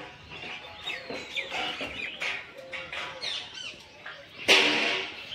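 Birds chirping and calling throughout, with one loud, harsh call lasting under a second about four and a half seconds in.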